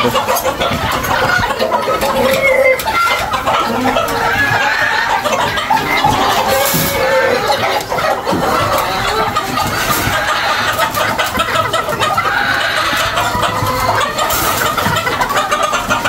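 A flock of chickens clucking and calling without pause, many birds overlapping, stirred up by a feed of live beetles. Scattered light clicks and knocks run through it.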